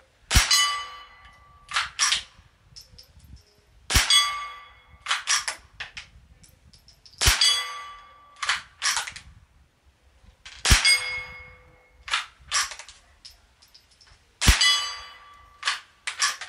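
Five shots from a Ruger 10/22 Takedown .22 LR rifle firing CCI Quiet subsonic 40-grain rounds, spaced about three and a half seconds apart. Each shot is a sharp report followed at once by a steady ringing clang from a steel target. About a second and a half after each shot come two quick clicks.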